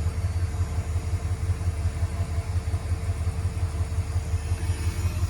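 A 1972 Imperial's Chrysler 440 big-block V8 idling with a steady, even low rumble, and a faint steady tone running alongside.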